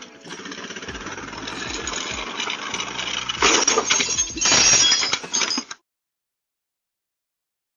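ATV engine running as the quad rolls forward, then two loud bursts of clattering and rattling about three and a half and four and a half seconds in as it runs into a parked car, after which the sound cuts off suddenly.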